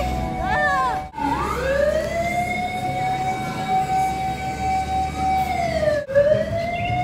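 Fire truck siren wailing on a small Nissan Safari fire truck: the tone rises and holds steady for a few seconds, then dips and climbs again near the end.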